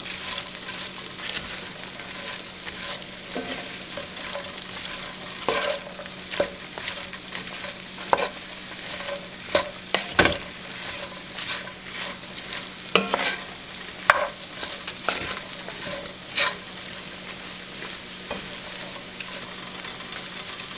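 Chopped cabbage sizzling in drippings and butter in a cast-iron skillet, with a steady hiss. A wooden spoon scrapes and knocks against the pan now and then as the cabbage is stirred.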